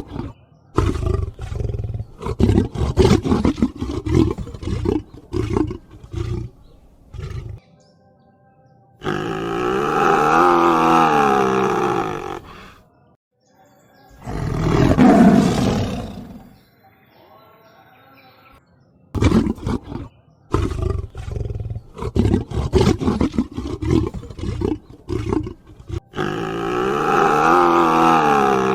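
Tiger vocalising: a rapid run of short, loud growling grunts, then two long drawn-out roars. The sequence then repeats, with another run of short grunts and a long roar near the end.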